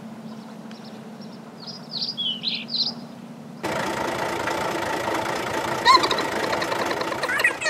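Cartoon sound effects: a toy tractor's engine hums steadily under a few bird chirps, then a louder engine noise cuts in suddenly about halfway. A short rising squeak comes near the end.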